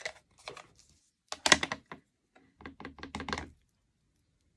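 Plastic ink pad case clicking open, then a quick run of light knocks as a clear acrylic stamp block is tapped onto the ink pad to ink the stamp.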